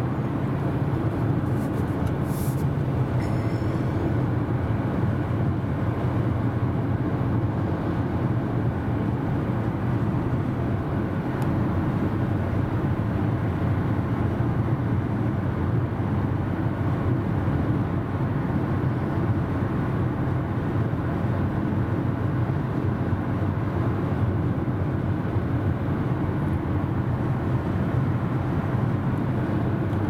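Steady road and tyre noise with engine hum inside a car's cabin while driving at freeway speed, a low, even rumble that does not change.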